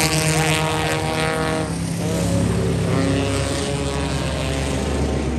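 Race car engines running on the track; the engine note drops in pitch about two seconds in, then holds at a lower steady drone.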